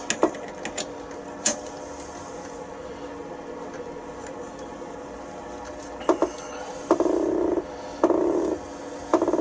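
A few sharp metal clicks from a four-jaw chuck on a mini lathe being adjusted, then several short rasping whirs, each about half a second, as the chuck and spindle are turned by hand to check the work's run-out against a dial indicator.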